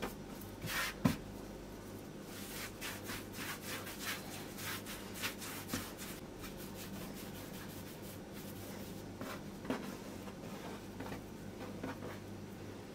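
Hands rolling and shaping soft yeast dough on a floured wooden board: faint, irregular rubbing and brushing strokes, with one light knock about a second in.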